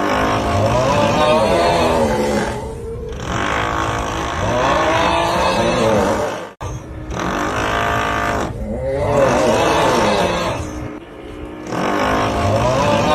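Meme sound of a long, groaning snore, 'Uuuuuugghhhhh', looped over and over with a drilling sound underneath. Each drawn-out groan bends up and down in pitch and lasts two to three seconds, with short dips between, and the audio cuts out for an instant about halfway through as the loop restarts.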